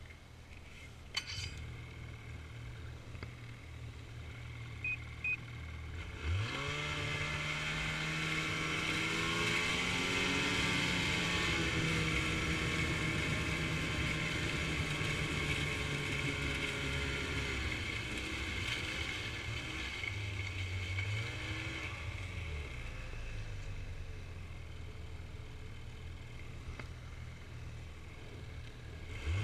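Snowmobile engine running gently at low speed, then about six seconds in the throttle opens and it revs up sharply, running loud and high for around ten seconds before easing back to a lower, steadier cruise.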